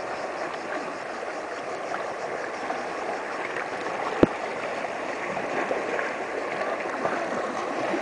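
Small waves washing and gurgling over shore rocks in a steady hiss, with a single sharp click about four seconds in.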